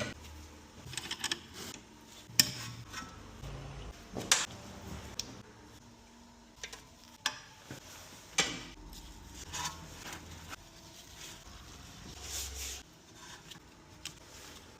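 Workshop handling noises during car servicing: scattered metallic clinks, knocks and rubbing of tools and parts being handled, with the sharpest clanks about two and a half, four and a half and eight and a half seconds in.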